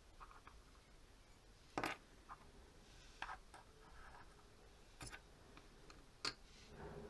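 Quiet handling of tiny miniature-kitchen pieces on a wooden tabletop: a few sharp clicks and taps as a mini knife and a small plastic cutting board are picked up and set down.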